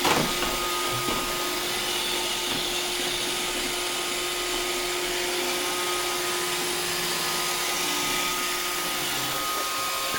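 iRobot Roomba robot vacuum running while it cleans: a steady whir of its vacuum motor and brushes with a constant humming tone.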